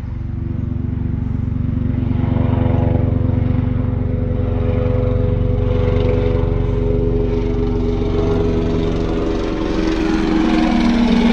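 Light helicopter flying low overhead: steady rotor chop with the engine's hum. It grows louder about two seconds in and is loudest near the end as it passes closest.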